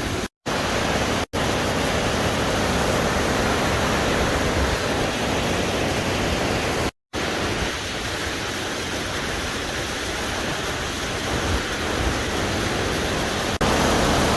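Great Falls of the Housatonic River: a waterfall's steady rushing noise. It drops out to silence briefly about half a second in, again just after a second in, and around seven seconds in, and it gets a little louder just before the end.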